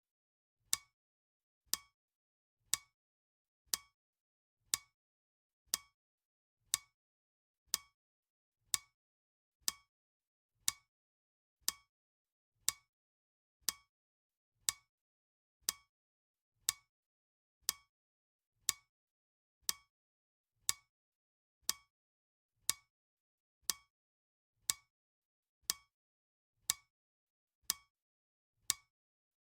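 Clock ticking steadily, one sharp tick about every second, the seconds count of a countdown timer.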